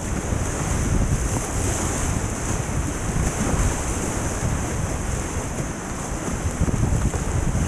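Whitewater rapids rushing and splashing around a kayak as it is paddled through, with heavy wind rumble on the microphone.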